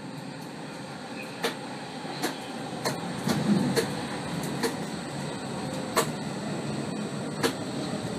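Helsinki metro train running through the tunnel, heard from inside the front car: a steady rolling rumble with about eight sharp, irregularly spaced clacks from the wheels and track.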